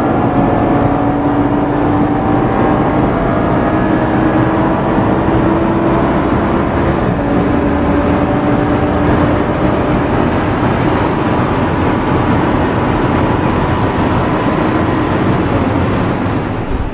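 Audi R8 Spyder's 5.2-litre V10 engine running steadily under way, with road noise. Its pitch drifts slowly and drops a step about seven seconds in.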